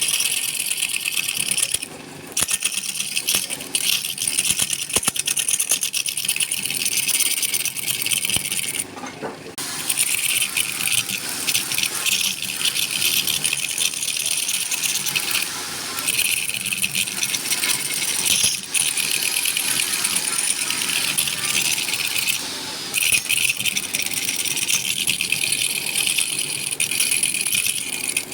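A turning tool cutting wood spinning on a lathe: a dense, rapid rasping scrape, broken by a few short pauses where the tool lifts off.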